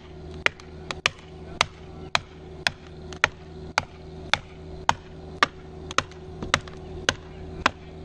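Sledgehammer driving felling wedges into the cut of a silver maple trunk: about fourteen sharp, evenly paced blows, a little under two a second, lifting the trunk to tip it in the chosen felling direction. A steady low hum runs underneath.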